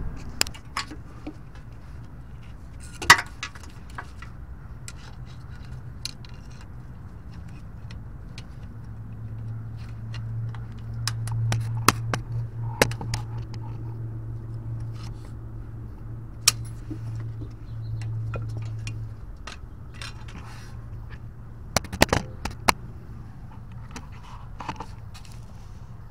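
Scattered metallic clicks, clinks and light scrapes from a CV axle and hand tools being worked on, with sharper knocks about 3, 12, 16 and 22 seconds in. A low steady hum runs through the middle.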